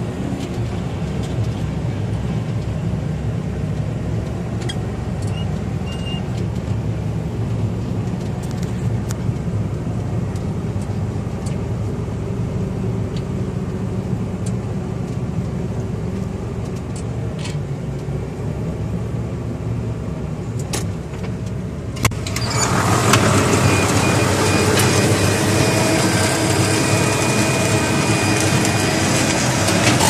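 Vervaet Beet Eater 617 six-row sugar beet harvester at work, a steady engine and machinery drone heard from inside a neighbouring cab. About 22 seconds in there is a click, then the sound turns louder and brighter, with the harvester's machinery rattling.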